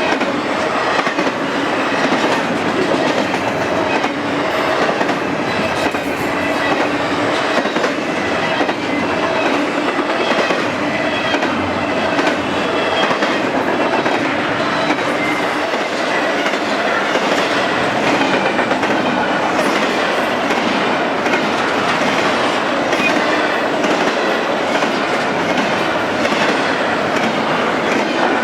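Freight train cars rolling past, wheels clattering steadily over the rail joints.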